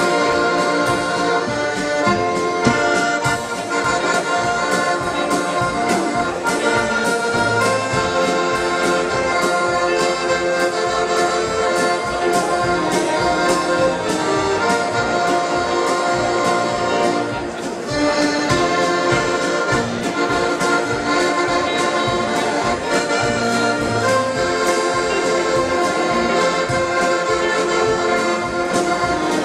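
Live dance-band music: accordion playing a melody over a steady drum beat, with guitar and bass.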